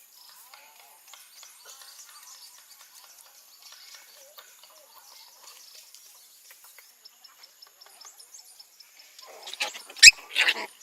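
Outdoor ambience of birds chirping over a steady high insect drone. Near the end come a few loud, sharp sounds, like rustling or knocking.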